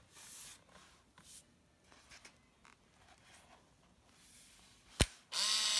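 Pentax PC-3000 compact 35mm film camera: a sharp shutter click about five seconds in, then a short motor whir rising in pitch as the motor winds on. Faint handling rustles come before it.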